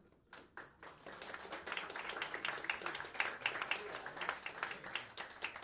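Audience clapping and applauding as a live piece ends. Starts scattered, swells over the first two seconds into steady applause, and thins out near the end.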